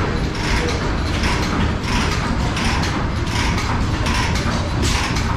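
Antique stationary engines running, a steady mechanical clatter with a regular knock about once a second.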